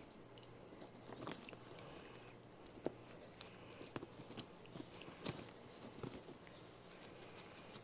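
Faint rustling and scattered small clicks, about half a dozen, as a capuchin monkey and human hands handle a fabric busy board, tugging at its laces and snaps.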